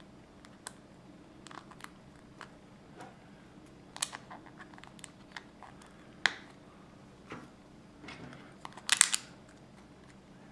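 LEGO plates clicking and snapping as they are handled and pressed together: scattered small clicks, a sharper snap about six seconds in, and a quick run of clicks near the end.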